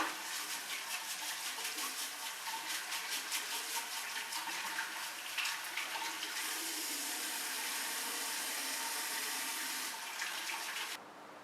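Water running from a tap into a sink, splashing unevenly at first and then pouring as a steady stream from about six seconds in. The tap is shut off near the end.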